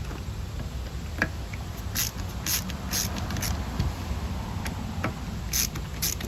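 Scattered short clicks and scrapes of small tools and plastic pump parts being handled during disassembly, about eight in all, over a steady low hum.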